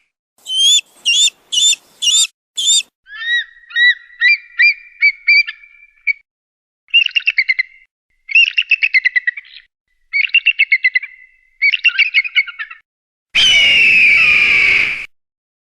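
Eagle calls in a series of separate bursts: five short high whistled notes, then runs of rapid chirping and piping trills, and near the end one longer, louder, harsh scream, with silent gaps between the bursts.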